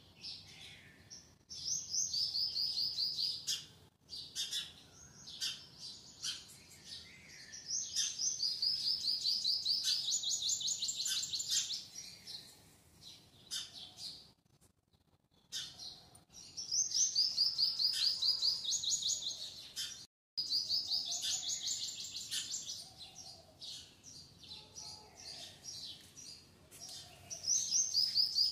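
A bird singing in repeated phrases of rapid high chirps. Each phrase steps down in pitch and lasts a few seconds, with phrases coming every few seconds. Short clicks are scattered in between.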